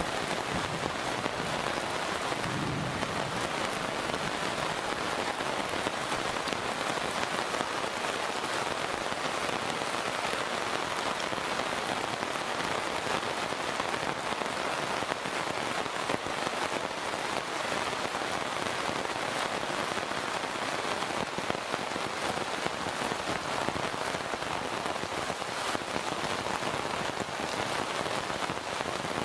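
Heavy monsoon rain pouring onto a road and the trees around it, a dense, even hiss that holds steady throughout.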